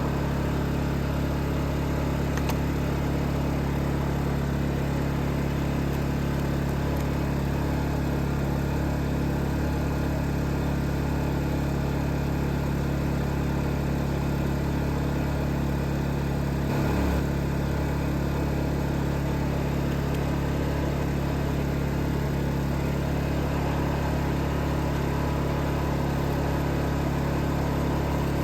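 Predator 2500 inverter generator running steadily at a constant idle. Its engine note dips briefly and recovers about two-thirds of the way through.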